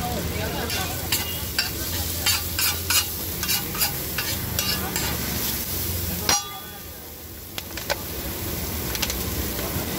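Steel spatula clattering and scraping on a large flat iron tawa, chopping and stirring onion and tomato frying on it, with a steady sizzle underneath. The strikes come irregularly, several a second, with a brief lull a little past halfway.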